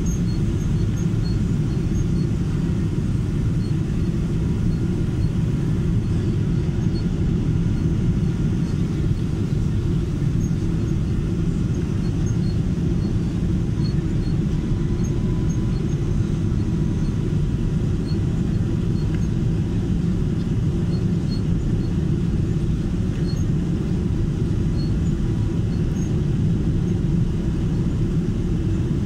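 Steady low rumble of an airliner's engines and airflow heard from inside the passenger cabin as the plane descends to land.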